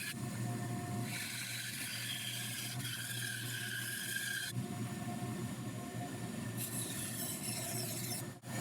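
Bandsaw running steadily, its blade cutting through a glued-up wooden block to saw out the outside shape of a bandsaw box.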